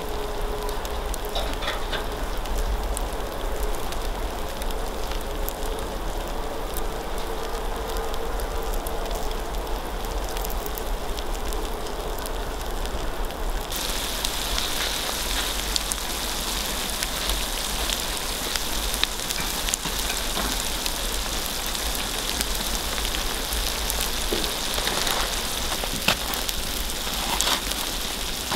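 Seafood paella sizzling and bubbling in a steel pan over a wood fire, with small crackles from the burning wood. The sizzle becomes brighter and louder about halfway through.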